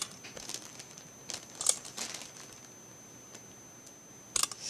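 Clear plastic zip bag of kinetic sand being handled: a few short, scattered crinkles and rustles, the loudest near the end.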